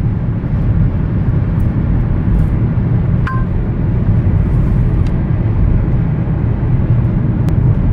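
Steady road and tyre rumble inside a Kia Soul's cabin at highway speed, about 69 mph. About three seconds in, a brief two-note electronic chime, falling in pitch.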